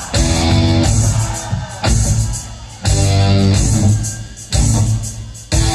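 Rock band playing live, an instrumental passage without singing: full guitar chords struck every second or so and left to ring over a heavy bass.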